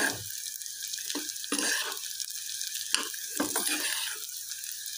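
Food sizzling in hot oil in a pan, a steady hiss broken by several knocks and scrapes of a utensil being stirred against it.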